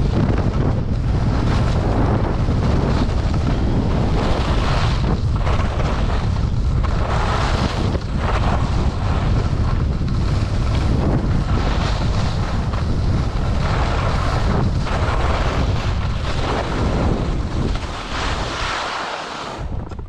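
Wind buffeting a body-worn action camera's microphone while skiing downhill, a heavy rumble, with the skis' hiss over packed snow swelling at each turn. It dies down over the last couple of seconds.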